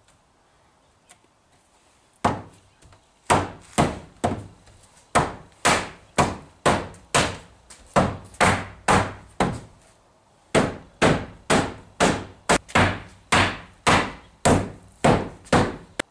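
Hammer blows on the wooden chalkboard frame: a steady run of sharp knocks, about two a second, starting about two seconds in, with a short pause partway through. The frame pieces are being knocked together at the freshly glued corners.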